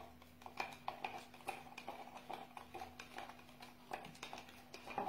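Faint, irregular light clicks and taps of a plastic measuring jug and teaspoon being handled, over a faint steady hum.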